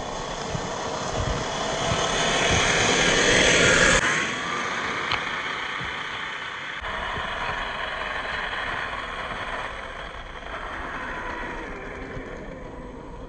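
The brushed 540 27T electric motor and gearbox of a 1/10-scale RC crawler whine as it drives, the pitch sliding up and down with the throttle. The sound builds for about four seconds, drops suddenly, then carries on more quietly.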